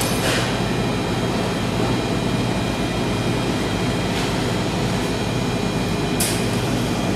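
Steady machinery hum and whirr of a commercial kitchen's refrigeration and ventilation, with a few faint light taps.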